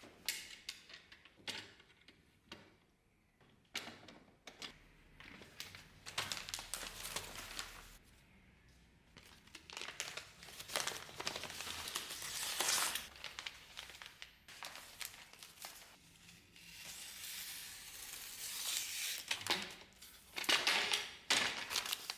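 Irregular crinkling and scraping noises from hand work, coming in bursts a few seconds long, loudest near the middle and again near the end.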